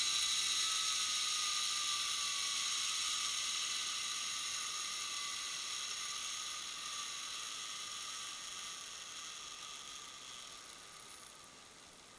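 Zipline trolley pulleys running along the steel cable: a steady high whir with several tones that slowly drop in pitch and fade as the trolley slows down near the end of the run.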